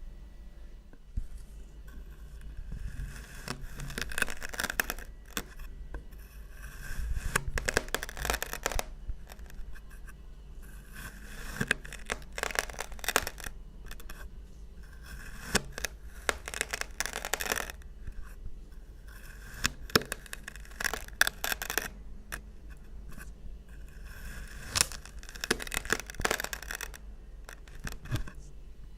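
Kinetic sand being cut and crushed, giving crisp crunching and scraping in about six bursts of a second or two, a few seconds apart.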